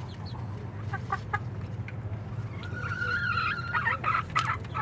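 Hens clucking: a few short clucks, then one longer wavering call about three seconds in, then more clucks near the end, over a low steady hum.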